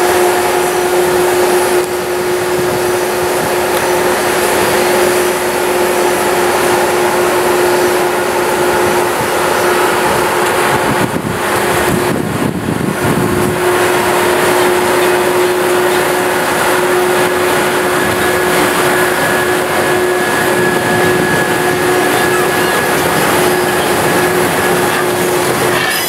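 Electric locomotives running slowly: a steady fan-like whir with a held humming tone, and a brief lower rumble about halfway through.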